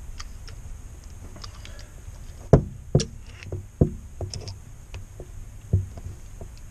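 Hand hydraulic crimping tool working as it crimps a copper lug onto heavy 4-gauge cable, and being handled on a table: about five separate sharp knocks and clicks, the loudest about two and a half seconds in.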